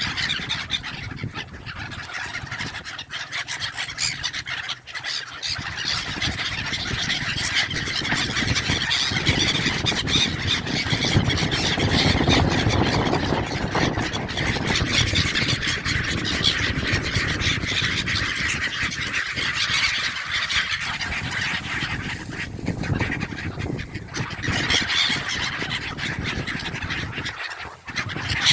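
A flock of seabirds calling continuously over one another, with a steady low rumble underneath.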